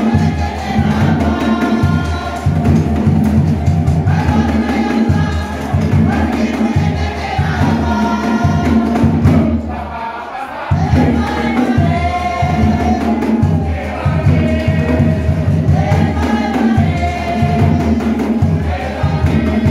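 Cook Islands song: a group singing together over a steady, heavy low beat. The music drops back briefly about halfway through.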